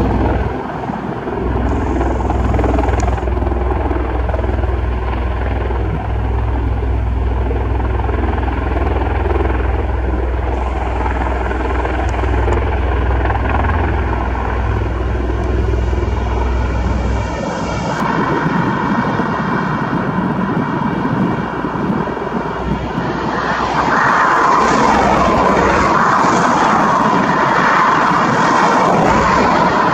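Bell Boeing V-22 Osprey tiltrotor running, its Rolls-Royce T406 engines and rotors making a steady, loud aircraft noise. The deep low end drops out suddenly about two-thirds of the way through, and the sound grows louder and brighter near the end.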